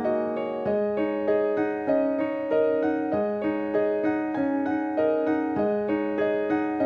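Background piano music: a gentle melody of evenly paced notes, about two a second, over held lower notes.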